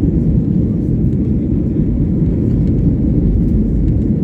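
Jet airliner's engines and airflow making a steady, dense low rumble with no change in pitch.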